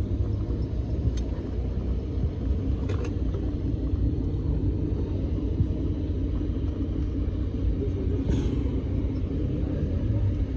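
Engine running steadily with a low rumble, and a few faint clicks over it.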